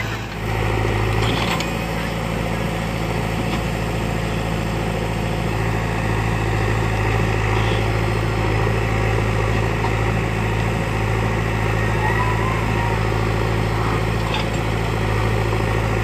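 Diesel engines of a JCB 3DX backhoe loader and a farm tractor running steadily, an even low hum.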